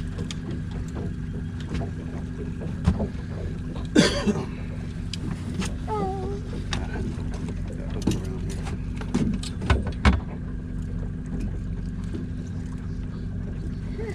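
Fishing boat's motor running steadily with a low hum, with scattered knocks and clatter on the boat.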